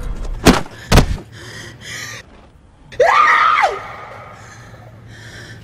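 Two hard blows landing about half a second apart, then a person's short scream of pain that rises and falls in pitch.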